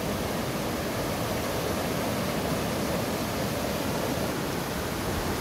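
Whitewater of a small mountain river tumbling over a boulder cascade: a steady rushing noise.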